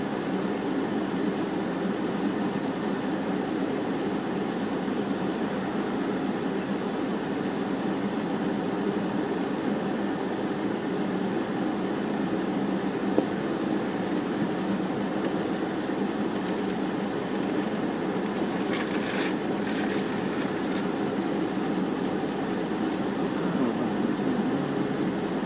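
Steady hum and rush of a parked car's air conditioning, heard from inside the cabin. A few faint clicks come about two-thirds of the way through.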